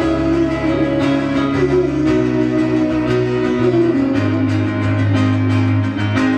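Live band music with no singing: an acoustic guitar strummed in a steady rhythm over sustained low bass notes.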